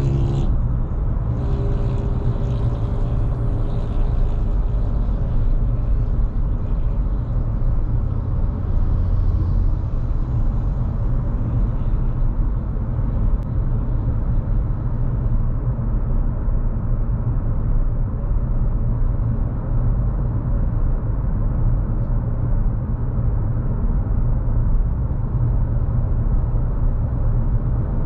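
Nissan Kicks 1.6 with CVT being driven: a steady low rumble of engine and road noise with no sudden events.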